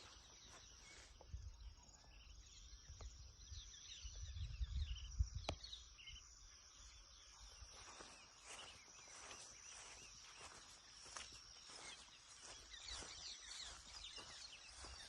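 Quiet outdoor ambience: a steady high insect trill with many short bird chirps over it, and low rumbles and a single sharp click in the first half.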